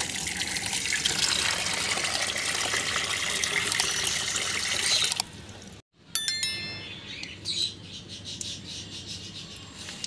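Water gushing hard from an opened PVC pipe tap, splashing onto the ground and into a plastic tub, in a steady rush that stops about five seconds in.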